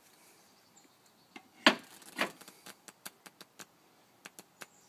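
Playing cards being thumbed and flicked off a deck in the hands: two louder snaps a second or so in, then a run of light, quick clicks.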